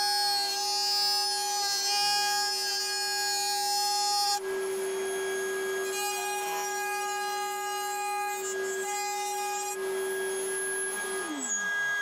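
Router running at high speed under a small router table while a wooden bar is fed past the bit to cut a groove, with the cutting noise changing about four seconds in as one pass gives way to the next. Near the end the router is switched off and winds down with a falling pitch.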